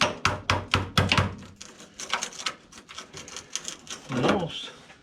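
Quick series of sharp metal taps, a hammer striking a chisel to knock a spot-welded sheet-metal panel piece loose. The taps come three or four a second at first, then more scattered. A short spoken word comes near the end.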